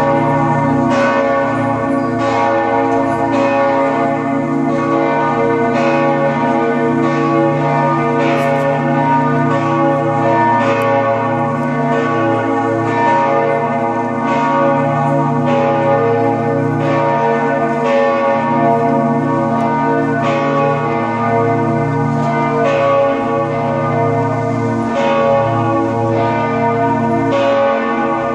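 Several church bells ringing together in a full peal, their strokes falling about once a second and overlapping over a lingering hum.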